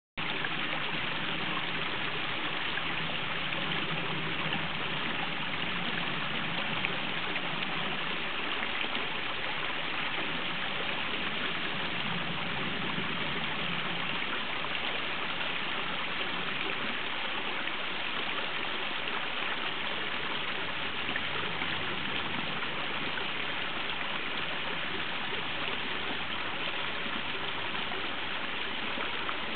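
A small stream of water trickling over a rock ledge and splashing down among leaf litter, a steady, even rushing sound.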